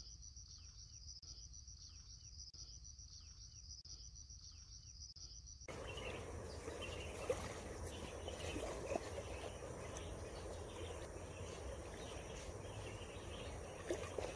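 Faint insects chirring in a steady, pulsing high trill, with short falling calls repeating under it. About six seconds in it cuts off suddenly to a faint, even outdoor noise with a few light knocks.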